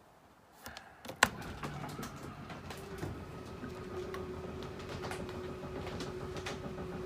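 A sharp click, then an RV slide-out's electric motor running with a steady hum as the slide room extends.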